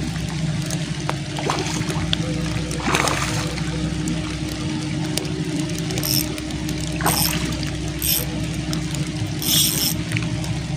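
Heavy rain falling on river water, with a steady low hum underneath. Several short raspy bursts come between about six and ten seconds in, from the spinning reel's drag giving line to a hooked mullet.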